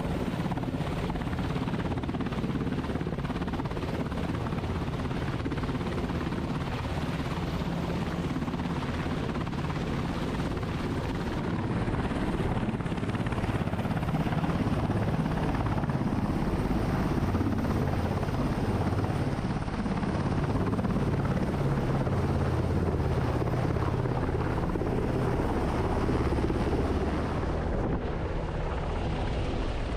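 H-60 Seahawk-type navy helicopter hovering low over a ship's flight deck: steady rotor and turbine noise.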